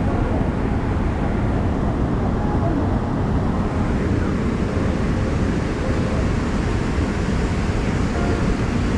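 Steady rushing roar of the Niagara River's whitewater rapids, an even, unbroken noise heaviest in the low end.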